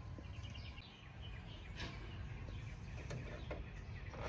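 Quiet outdoor background with faint bird chirps in the first second or so, and a few faint clicks later.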